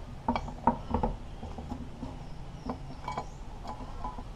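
Motorcycle stator coil assembly being handled and seated into the engine side cover. A series of light clicks and knocks of the parts meeting: three sharper ones in the first second, then fainter ones.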